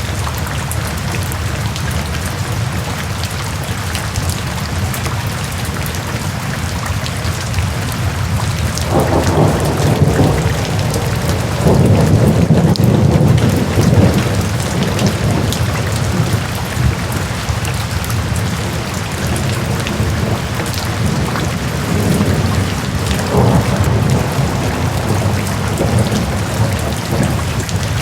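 Steady rain falling, with a low rumble of thunder swelling up about nine seconds in and lasting several seconds, and a fainter rumble later on.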